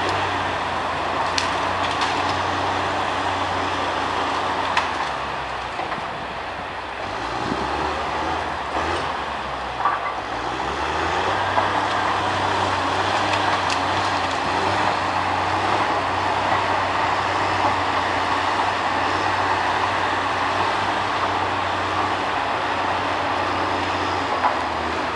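Log skidder's diesel engine running steadily as it works logs, dropping in pitch about seven seconds in and coming back up a few seconds later.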